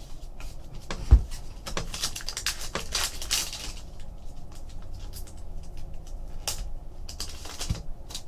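Trading cards being handled on a table: light clicks and rustles of card stock as cards are flipped and slid, with one sharp tap about a second in and a burst of rustling a couple of seconds in.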